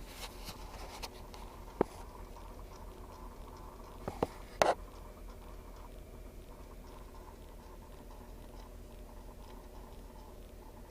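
Rapid, faint clicking from behind the dash cluster of a 2008 Ford F-150, with a few sharper, louder clicks about two seconds and four and a half seconds in. The noise is one that is often put down to a failing A/C–heater blend door actuator.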